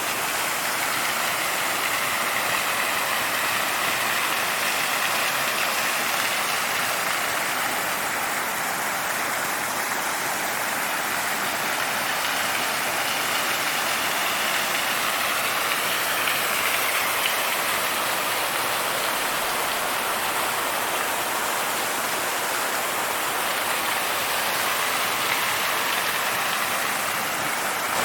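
Steady rush of a small waterfall and cascading creek, water pouring over rock steps into pools.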